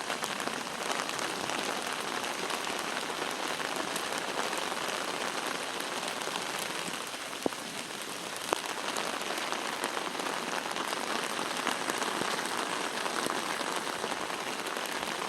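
Heavy rain falling steadily, an even hiss of drops on the ground and surfaces, with two sharp single taps about halfway through.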